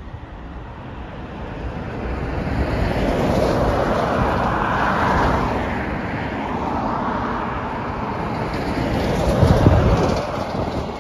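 Road traffic passing close by: the noise of passing cars swells, eases and swells again, with the loudest pass near the end, deepest and strongest just before it fades.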